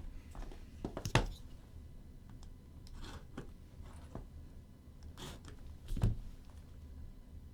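Trading-card box and cards being handled on a table: soft rustling and scattered knocks, with a sharp knock about a second in and a duller thump about six seconds in.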